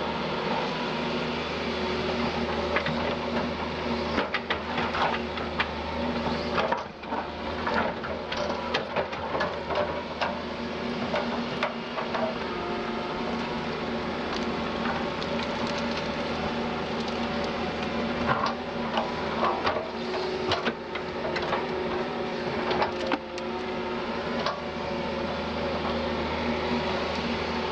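Doosan DX180 LC excavator's diesel engine and hydraulics running steadily, with frequent knocks and cracks as the bucket works the forest ground, breaking through soil, roots and wood.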